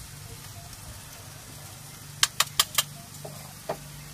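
Metal kitchen tongs clicking sharply four times in quick succession about halfway in, then once more near the end, over a steady low engine-like hum.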